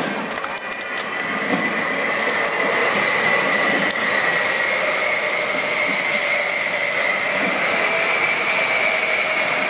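Passenger train passing close by: the steady running noise of the wheels on the rails, with a thin high whine that rises slightly in pitch.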